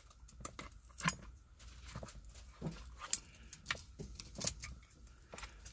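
Irregular light clicks and rattles of plastic electrical connectors and their wires being slid through a removed steering wheel.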